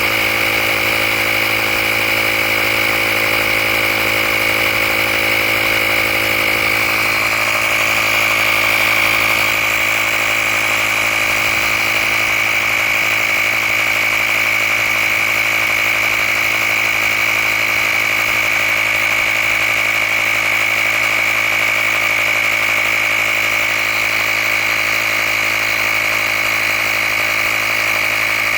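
Handheld electric air compressor running steadily as it inflates a tire toward a preset 35 PSI, a steady motor whine with a strong high tone.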